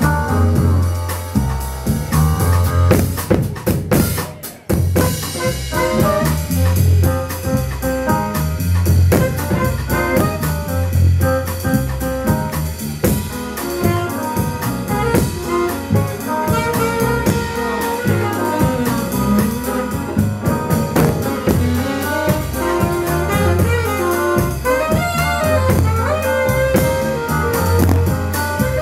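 Live band playing upbeat jazzy music on drum kit and saxophone over a steady pulsing bass line. The band stops short for a moment about four seconds in, then comes back in.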